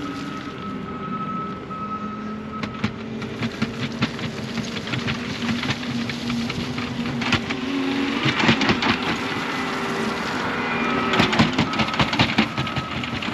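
Diesel heavy equipment running at a construction site, with a skid-steer loader working. A high-pitched backup alarm sounds near the start and again in short beeps near the end. Through the second half there is a busy clatter of metal knocks and rattles.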